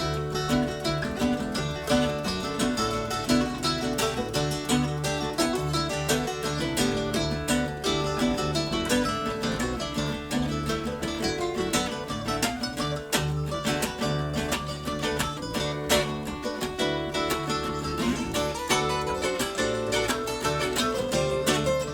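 Acoustic string band playing an instrumental passage with no singing: guitar and mandolin picking many quick notes over a steady low bass line.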